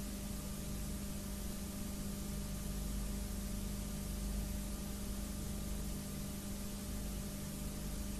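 Steady hiss with a constant low hum: the noise floor of an analogue videotape's audio track, with no program sound on it.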